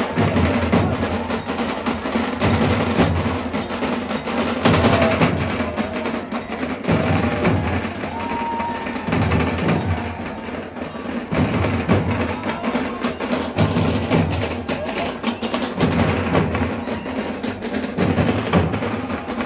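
Loud percussion-led music with repeated drum beats.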